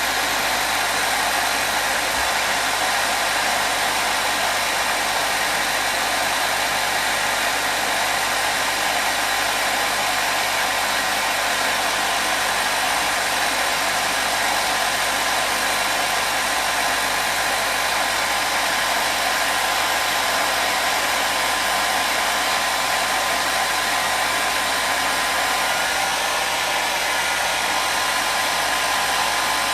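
Hair dryer running continuously: a steady rush of blown air with a faint motor whine, unchanging throughout.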